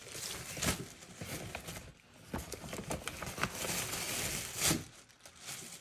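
Paper gift bag and tissue paper rustling and crinkling as a hand digs through the bag, with a few sharper crackles.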